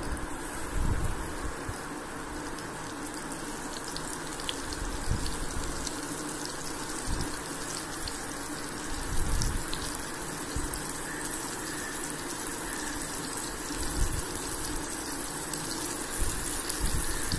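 Batter-coated fish pieces shallow-frying in hot mustard oil in a pan: a steady sizzle as more pieces are laid in, with a few low bumps.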